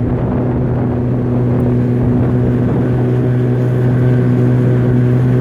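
Boat motor running steadily at a constant speed, an even, unchanging drone.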